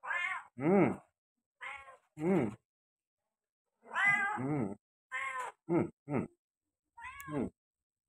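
Domestic tabby cat meowing over and over, about nine short meows with rising-and-falling pitch, the longest about four seconds in: a hungry cat begging for food.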